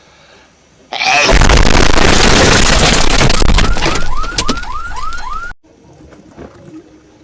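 A sudden, ear-splittingly loud, distorted explosion sound effect standing in for a hedgehog's sneeze, lasting about four and a half seconds. Near its end comes a run of short rising whoops, about three a second, and then it cuts off abruptly.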